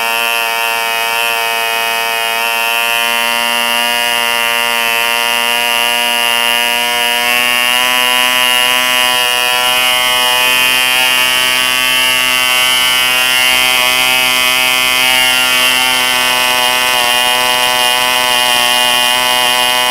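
E.D. Bee 1cc two-stroke model diesel engine running steadily on a test stand and turning its propeller, giving a loud, high-pitched buzz that gets slightly louder about a third of the way in.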